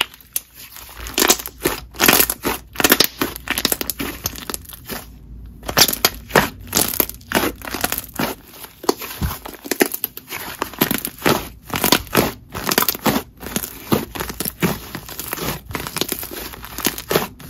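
Thick, fluffy clay-based slime mixed with coated jelly being stretched, folded and pressed by hand, giving a dense run of crackling sizzles and small pops from the air worked into it.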